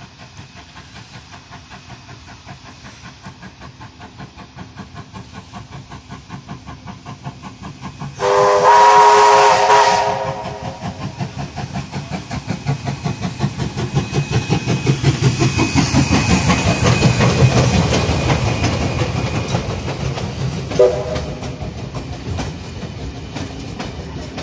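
Steam locomotive 2705 approaching and passing: rhythmic exhaust chuffs grow steadily louder, a loud chime-like steam whistle blows for about two seconds a third of the way in, and the chuffing peaks as the engine goes by. Then the carriages roll past with a clickety-clack of wheels over the rail joints.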